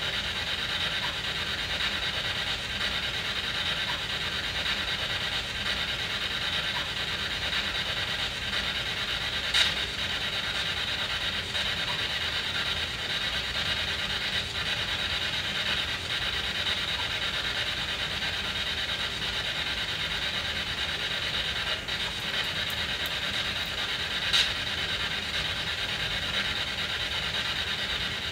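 SB7 spirit box sweeping through radio stations, putting out a steady hiss of static, with two sharp clicks about 10 and 24 seconds in.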